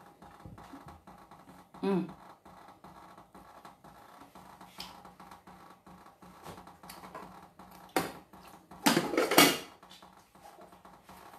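Kitchen utensils and dishes being handled on a counter: light knocks and scrapes, then a short, louder clatter of crockery and metal about nine seconds in, over a faint steady hum.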